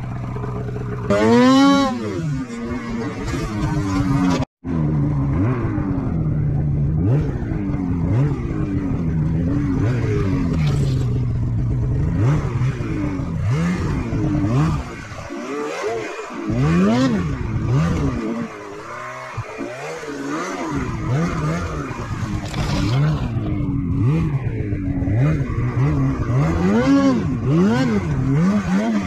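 Snowmobile engine being ridden hard, revving up and down over and over, its pitch rising and falling with the throttle; one sharp rev about a second and a half in, and the sound cuts out for an instant a few seconds later.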